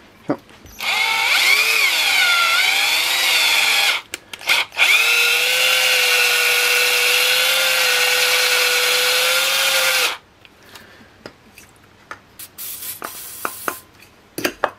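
Parkside 10.8 V cordless drill spinning a grinding arbor inside a model diesel engine's cylinder, grinding the bore to a slight taper. The motor whines for about three seconds with its speed wavering, stops briefly with two short blips, then runs steadily for about five more seconds and cuts off, leaving light clicks of handling.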